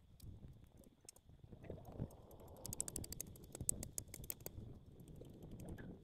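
Footsteps crunching on lakeshore gravel, a dense run of small clicks about midway, over a low rumble of wind on the microphone.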